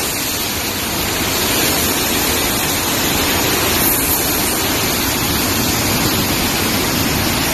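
Hurricane-force wind and driving rain: a loud, steady rushing noise with no let-up.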